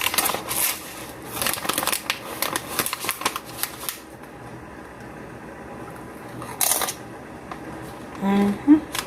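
Close crunching of crisp popped-corn chips being chewed, dense for about the first four seconds, then one short rustle later on.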